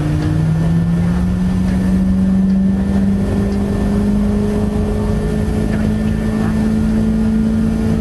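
Large steam whistle blowing one long, deep note that slides up slightly in pitch over the first couple of seconds and then holds steady. A higher whistle note dies away about half a second in.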